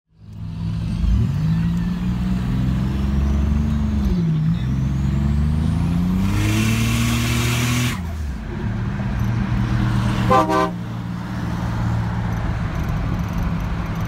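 A Buick Grand National's engine accelerating hard: the revs climb, dip at a gear change, then climb again, with a loud hiss for about a second and a half near the end of the pull. After that, steadier engine noise with a short horn blast about ten seconds in.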